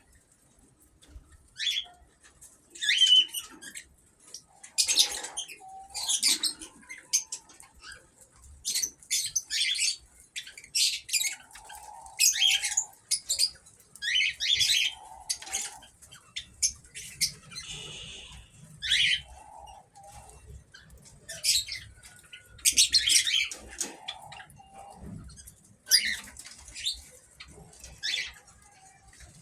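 Ino cockatiels calling in an aviary: many short, harsh, high-pitched squawks and chirps repeated throughout, with softer lower notes in between.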